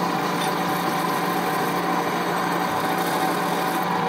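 Bench drill press running steadily, its bit drilling out a broken, rusted-in steel bolt.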